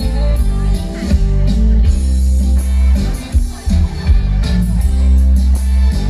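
Live Thai luk thung band music, loud, with heavy bass and a regular drum beat.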